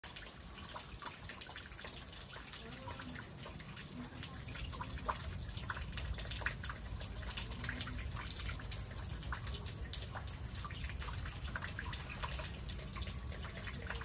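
Meltwater from a thawing ice storm dripping and splattering off icicle-laden eaves and ice-coated trees: many irregular drops, some near and sharp, over a steady low rumble.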